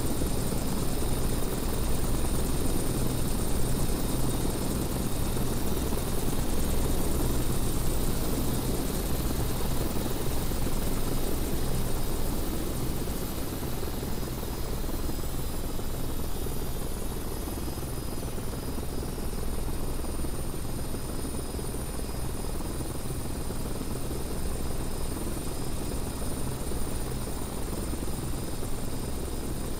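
Steady helicopter noise: a low rotor beat under a broad rush, with a thin, high turbine whine on top. It eases slightly after about fifteen seconds.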